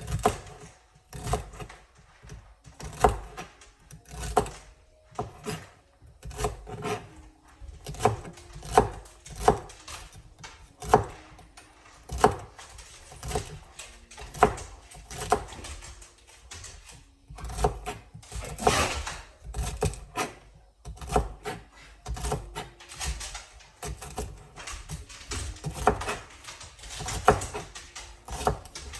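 Knife dicing celery stalks on a cutting board: irregular knocks of the blade striking the board, about one or two a second.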